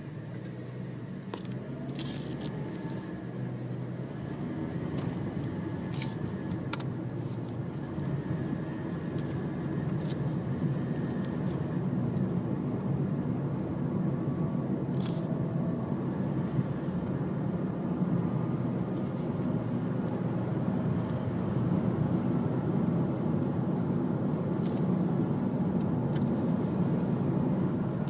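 Steady low rush of sandstorm wind that builds gradually louder, with scattered light ticks and taps.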